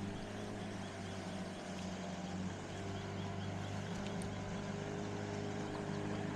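Steady low engine hum running evenly, its pitch shifting slightly about two and a half seconds in.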